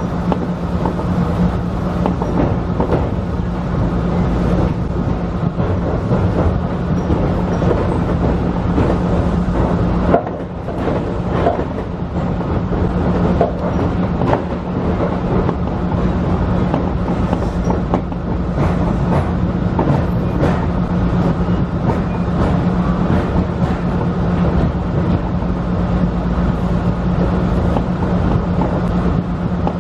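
Tobu Skytree Line electric commuter train running on elevated track, heard from the driver's cab: a steady low hum under continuous running noise, with irregular clicks from the wheels over rail joints and points.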